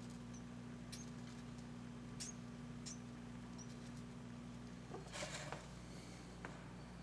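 Faint, short, high-pitched mouse squeaks, three in the first three seconds, over a steady low electrical hum. A brief rustle about five seconds in is the loudest sound.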